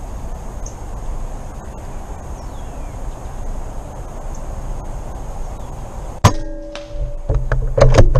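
A PCP air rifle fires once about six seconds in: a sharp crack with a short metallic ring after it. A few quicker clicks and knocks follow near the end.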